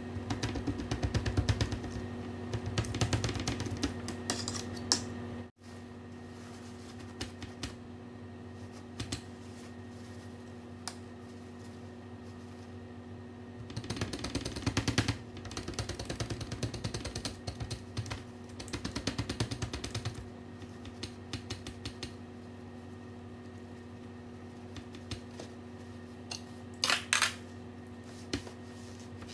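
A fork rapidly pricking the skin of a raw pork belly slab on a metal sheet tray, heard as bursts of quick clicking taps over a steady low hum. A short louder noise comes near the end.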